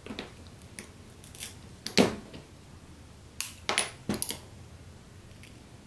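Cut art-glass strips clinking and tapping against each other and the glass base as they are picked up and set down: a series of sharp, separate clicks, the loudest about two seconds in and several more close together near the end.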